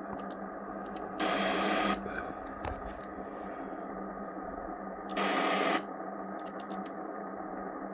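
Icom IC-R71 communications receiver's speaker giving a steady hiss with a low hum while tuned below 100 kHz and picking up no signal, only its own noise. Louder static comes twice, briefly: about a second in and about five seconds in.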